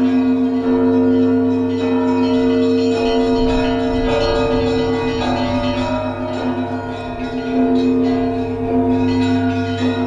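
Russian Orthodox church bells of the Trinity-Sergius Lavra bell tower ringing: several bells struck over and over, their tones overlapping and lingering.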